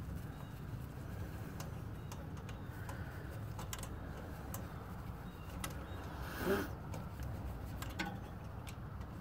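Faint, irregular metallic ticks from a ratchet and extension backing out a loosened Torx T30 bolt on a Volvo S60's turbo oil return line, with one slightly louder scrape about two-thirds of the way through, over a steady low hum.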